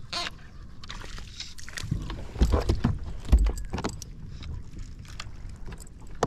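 Knocks, clicks and rattles of movement on a plastic sit-on-top kayak, irregular throughout, with two heavier thumps about two and a half and three and a half seconds in and a light metallic jingle.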